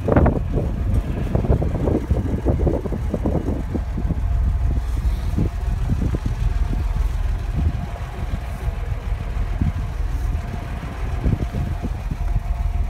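A truck engine running at a steady idle, a continuous low rumble with a faint steady hum above it. Irregular crunching noises come and go during the first few seconds.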